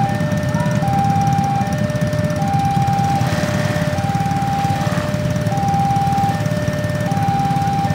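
Railway level-crossing warning alarm sounding: two electronic tones, a higher and a lower, alternating back and forth about every 0.8 s, over a low steady rumble of engines.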